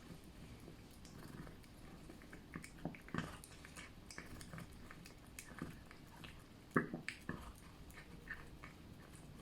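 A cat eating wet food in jelly: soft, irregular licking and chewing smacks, with the loudest pair of smacks about seven seconds in.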